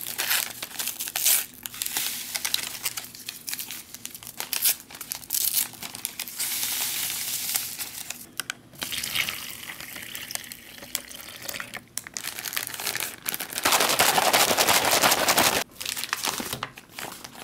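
Crinkling and tearing of MRE accessory packets and plastic wrappers as instant coffee, sugar and creamer are opened and emptied into the hot beverage bag. Near the end comes a louder, steady rush lasting about two seconds.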